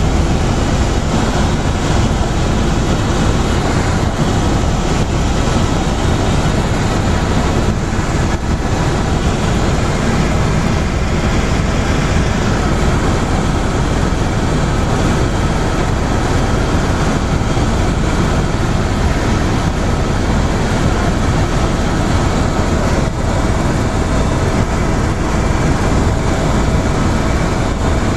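Helicopter cabin noise in flight: a loud, steady din from the rotor and engine heard from inside the cabin, with a faint steady whine above it.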